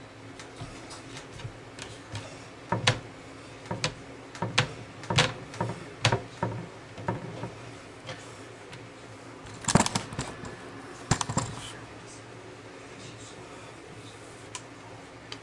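Irregular light knocks and clicks of things being handled and set down, coming thickest in the first half, with a louder clatter about ten seconds in, over a faint steady hum.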